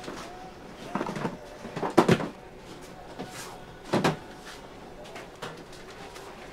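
Knocks and clunks of things being handled in a bakery kitchen: three main ones, about a second in, the loudest about two seconds in, and another about four seconds in, with a few lighter ticks between.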